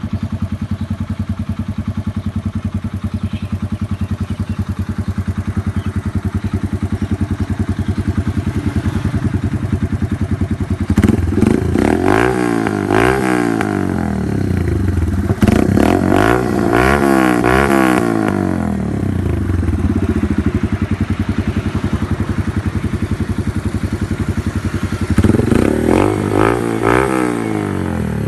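Yamaha YBR 125G single-cylinder four-stroke engine running through an SC Project CUT aftermarket exhaust, idling steadily. It is revved in quick repeated blips, pitch rising and falling, in two bursts around the middle and one more near the end.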